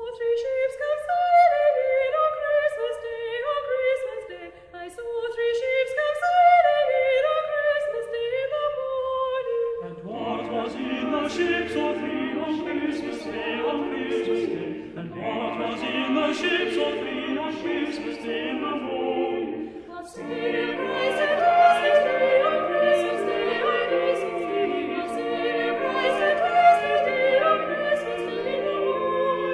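Background classical choral music: a single melodic line at first, joined about ten seconds in by a full choir.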